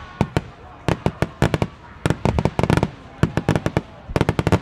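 Wide starmine fireworks barrage: rapid clusters of sharp bangs from volleys fired in quick succession, a new cluster about every half second. A falling whistle fades out just after the start.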